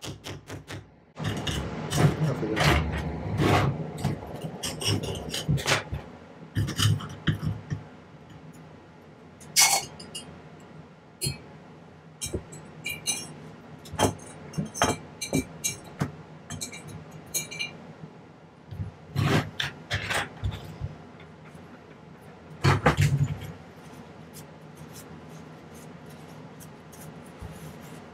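Handling noises at a soldering bench: steel tweezers and a small soldered silver piece clinking, tapping and scraping, with scattered knocks. The sounds come in irregular clusters and are busiest in the first few seconds.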